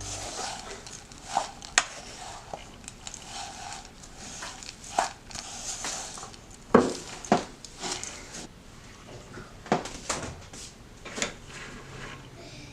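Kitchen utensils clinking and knocking against dishes, in scattered sharp knocks a second or two apart, with light handling noise between them, as granola ingredients are mixed and handled.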